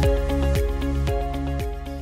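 Background music with a steady beat of about two strokes a second over held tones, slowly fading.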